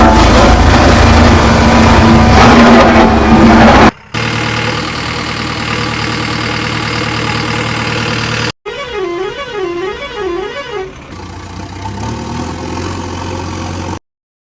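Loud heavy-vehicle engines running, cut abruptly from one clip to the next. About two-thirds of the way in comes a warbling horn whose pitch swings up and down for a couple of seconds. The sound stops dead shortly before the end.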